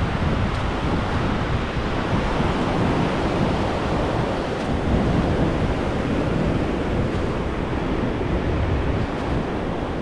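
Small waves washing onto a sandy beach, a steady rushing surf, with gusty wind buffeting the microphone.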